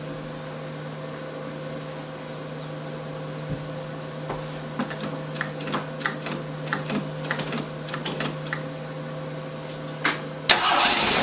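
A run of light, irregular clicks, then near the end the starter suddenly cranks the AMC 258 straight-six, a loud rapid mechanical clatter. The engine is hard to start after the new Weber carburettor went on, and it backfires slightly.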